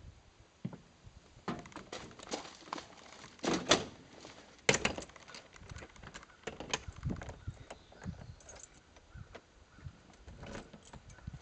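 Clatter of things being handled and put away: a run of small clicks and knocks, with two louder bangs about four and five seconds in.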